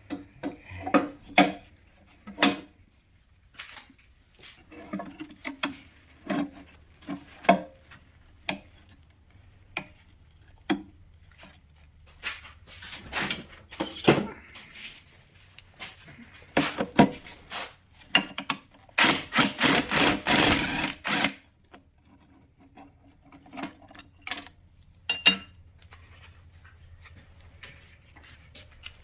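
Rusty steel fifth-wheel parts being handled on a bench: a run of separate knocks and clinks as pieces are picked up and set down, with about two seconds of steady scraping or rubbing partway through. Near the end a metal piece rings briefly.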